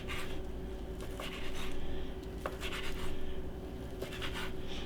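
Kitchen knife cutting through sliced ham and chicken, its edge scraping against the surface below in about four strokes roughly a second apart, with one sharp click midway.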